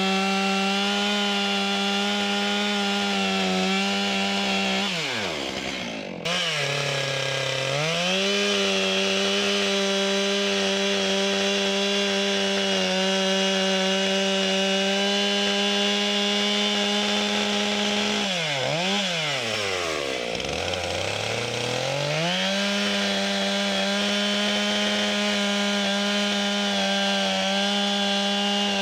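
Stihl MS 661 chainsaw with its stock muffler running at full throttle through pine, in long steady cuts. Twice it drops to idle and revs back up for the next cut, with a couple of throttle blips in between.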